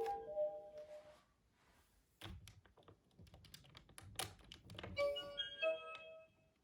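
Hasbro Room Tech Beingz alarm-clock toy playing short electronic jingles of stepped beeping notes, one at the start and another about five seconds in, with sharp clicks and knocks in between.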